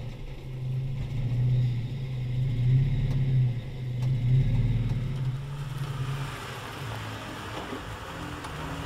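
2016 Toyota Tacoma's engine running low and steady at idle as the truck crawls over rock in its 254:1 crawl gearing. About halfway through the engine note gives way to a wider rush of noise, and the low engine note comes back near the end.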